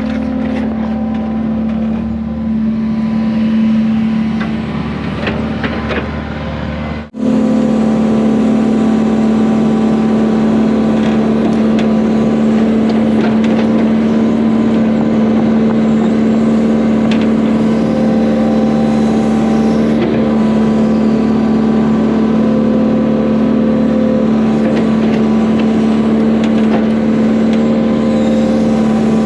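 Heavy-equipment diesel engine running steadily at constant speed with a strong, even hum. The sound breaks off sharply for an instant about seven seconds in, then carries on unchanged.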